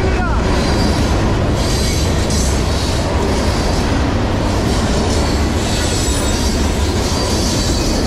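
Freight cars of a CSX manifest train rolling past close by: a steady, loud rumble of steel wheels on rail, with a faint high wheel squeal coming and going.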